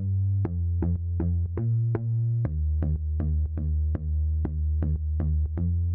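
Background electronic music: a drum-machine beat with a low synth bass line that shifts pitch a couple of times.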